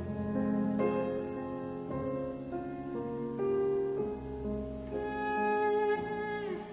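Cello and piano playing a classical piece: long held bowed notes that change pitch every second or so over piano chords.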